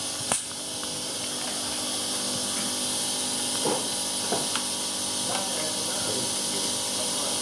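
Steady high hiss with one sharp click about a third of a second in, then a few faint short knocks and squeaks. This is handling noise as a compression tester is moved to the next spark-plug hole of a Kia G4FC 1.6 engine that is not running.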